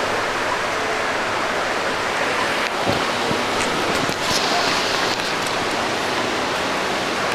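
Steady city street noise: an even rushing hiss of traffic, with a few short clicks about three to four seconds in.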